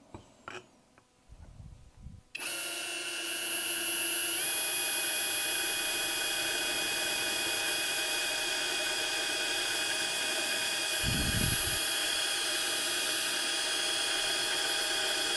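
Topshak TS-ED5 20V brushless cordless drill drilling through aluminium with a metal bit: a steady motor whine starts about two seconds in, steps up slightly in pitch a couple of seconds later, and stops near the end. A brief low thump comes about two-thirds of the way through.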